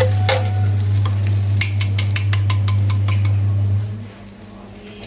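Tomato puree sizzling in hot oil in a nonstick frying pan as a metal slotted spatula stirs it, with a quick run of spatula clicks against the pan in the middle. A steady low hum runs underneath and drops out about four seconds in.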